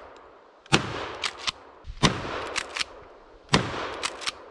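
Shotgun fired three times, roughly a second and a half apart, each shot followed about half a second later by two sharp clicks.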